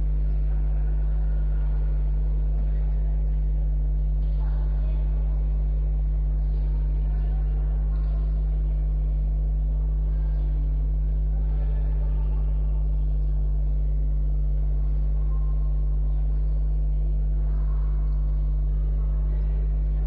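A steady low electrical-sounding hum throughout, with faint, indistinct voices in the background.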